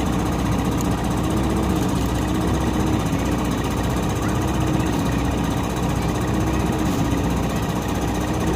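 Diesel engine of a hydraulic excavator running steadily under load while its boom shoves a large wooden fishing boat across the sand, a continuous drone with a slightly wavering note.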